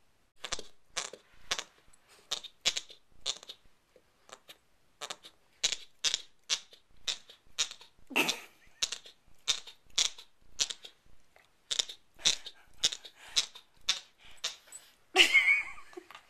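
Bernese Mountain Dog puppy chewing on a toy bowling pin: its teeth click and crunch against the pin about twice a second, in a steady rhythm. There is a louder knock about halfway through and a bigger, longer clatter near the end.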